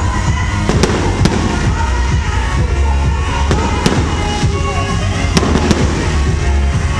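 Aerial fireworks bursting overhead: about six sharp bangs, several in quick pairs, over loud bass-heavy music and crowd voices.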